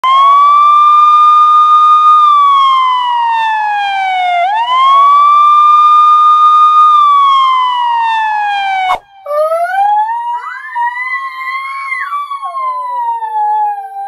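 Electronic emergency-vehicle siren on a slow wail: it rises quickly, holds high for a couple of seconds, then falls slowly, twice over, and cuts off suddenly about nine seconds in. After the cut comes a different, weaker wavering wail with two pitches gliding at once.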